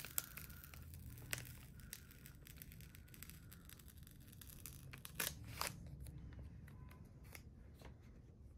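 Faint paper handling: stickers peeled off their backing sheet and pressed onto a notebook page, with soft rustles and a few short ticks, the loudest two about five seconds in.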